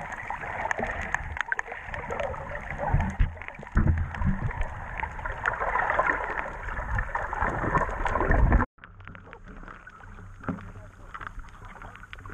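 Water sloshing and splashing around a GoPro in its housing while snorkeling at the surface, with small clicks and a few heavy low thumps. About two-thirds of the way in it cuts off suddenly to a quieter, muffled underwater hiss.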